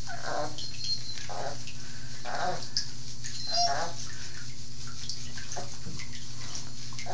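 A wet Border Collie puppy's coat being scrubbed with shampoo in a bathtub, the lather squishing under the hand, with short soft puppy grunts about once a second in the first four seconds. A steady low hum runs underneath.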